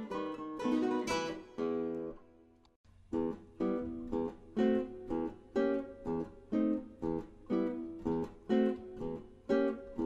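Background music of acoustic guitar strumming chords; it drops out briefly about two and a half seconds in, then goes on with steady strums about twice a second.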